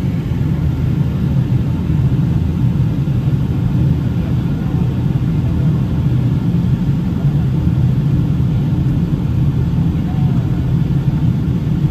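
Steady cabin noise inside a Boeing 757-200 airliner on descent: a low, even rumble of its Pratt & Whitney PW2037 engines and the airflow over the fuselage.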